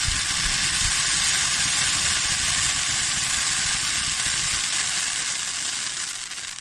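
Handheld sparkler firework spraying sparks with a steady loud hiss that starts abruptly and fades out near the end as it burns down.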